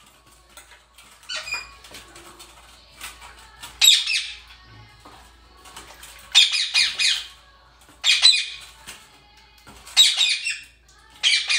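Indian rose-ringed parakeet giving loud, harsh squawks in about six short bursts, each a quick run of notes, spaced roughly two seconds apart.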